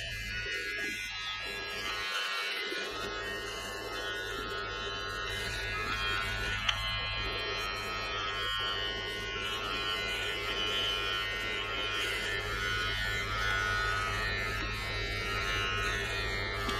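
Braun BT5265 electric beard trimmer buzzing steadily as it cuts the hair on a man's head.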